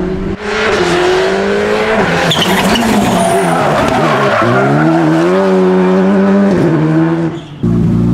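Skoda Fabia RS Rally2's turbocharged 1.6-litre four-cylinder engine revving and dropping off as the car is thrown through a tight tyre chicane, with tyres skidding on the asphalt. The revs climb again in one long rise about halfway through. Near the end it cuts to background music.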